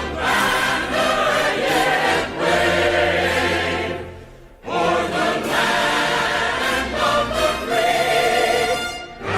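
A choir singing in sustained phrases over low held notes. The sound dies away briefly about halfway through, then the next phrase begins.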